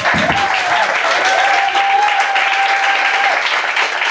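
Audience applause, dense fast clapping that starts suddenly. Over it one voice holds a long, wavering high call for about three seconds.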